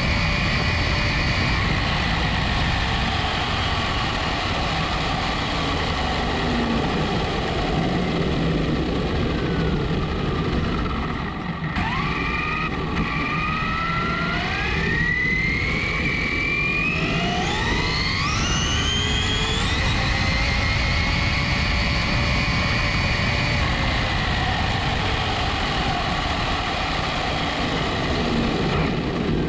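Traxxas Slash 4x4 Ultimate RC truck on a 3S battery, heard from a camera on board: the brushless motor's whine over steady wind and tyre noise at speed. The whine falls as the truck slows around the middle, then climbs steeply in pitch as it accelerates hard again.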